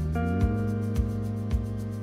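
Background music with held chords over a steady beat of about two strokes a second.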